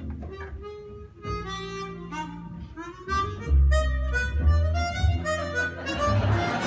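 Jazz duo of chromatic harmonica and plucked double bass: the harmonica plays a wavering melody over walking bass notes. A broad noise, likely applause, starts to swell near the end.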